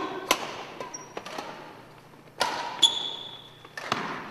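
Badminton rally: a string of sharp racket strikes on the shuttlecock and footfalls on the wooden court, each echoing in the large gym hall, with a short high squeak or ping now and then.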